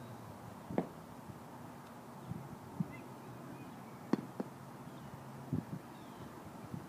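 Two sharp knocks of a baseball bat meeting pitched balls, one about a second in and a louder one about four seconds in, over a low outdoor background.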